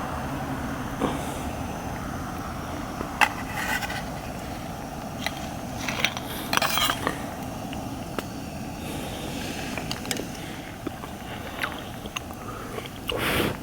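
Scattered light clicks and scrapes of tableware and utensils being handled while eating, over a steady low background rumble.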